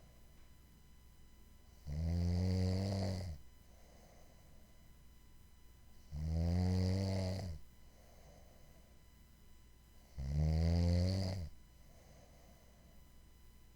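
Snoring in a slow, regular rhythm: three loud, low, rattling snores about four seconds apart, each lasting about a second and a half, with a much quieter breath between them.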